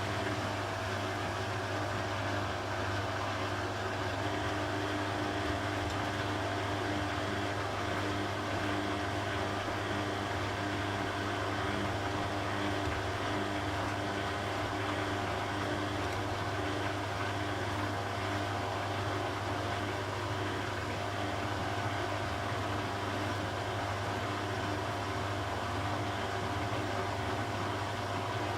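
Beko WTB841R2W washing machine running steadily, an even motor hum with a faint whine and no changes in speed.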